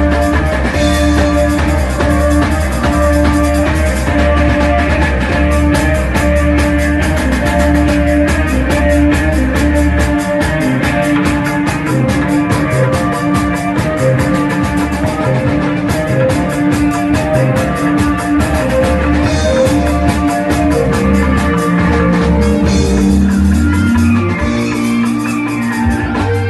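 Rock-style instrumental music with a drum kit keeping a steady fast beat, a sustained bass line and pitched instrument lines; the heavy bass drops out about ten seconds in and again near the end.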